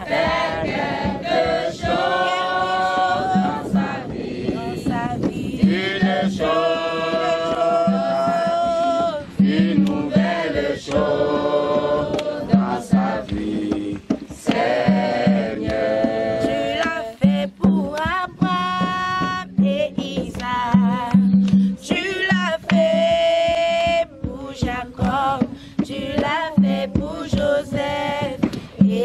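A group of children and adults singing a French gospel praise song together, in continuous sung phrases.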